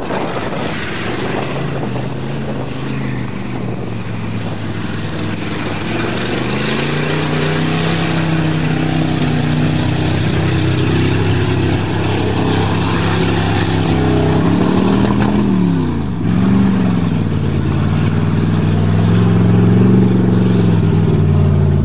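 Pickup truck engine running under load as the truck drives through mud, its pitch rising and falling with the throttle. About two-thirds of the way through, the revs drop sharply and then climb again.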